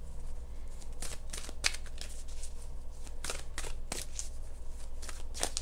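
Dragon oracle cards being shuffled and handled to draw a card: a few short, irregular card flicks and slides over several seconds.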